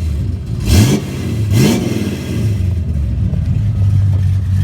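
1955 Chevy's 400 cubic-inch V8 idling, revved twice in quick succession by blips of the throttle, then settling back to a steady idle.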